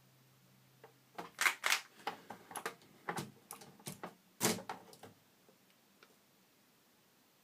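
About a dozen irregular sharp mechanical clicks and knocks from a Brother Deluxe 660-TR manual typewriter being worked, spread over about four seconds, with a few much louder strikes among them.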